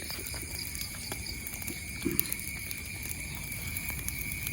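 Crickets trilling in one steady high tone, with a few soft footsteps on the ground.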